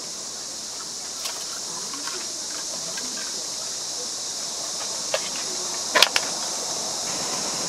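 Steady high hiss with a few short, sharp knocks scattered through it, the loudest a quick double knock about six seconds in.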